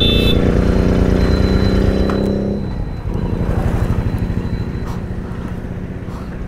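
Motorcycle engine running while riding, with a steady note that drops away about two and a half seconds in, as if the throttle is eased off. A quieter, pulsing engine sound carries on after that.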